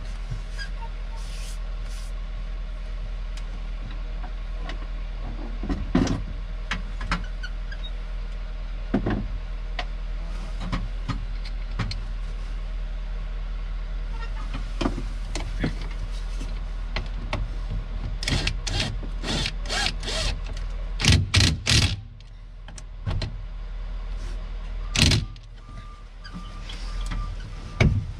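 Scattered metal clicks and knocks of hand work on a backhoe's pilot control pedestal during a gas cylinder refit, busiest about two-thirds of the way in, over a steady low hum.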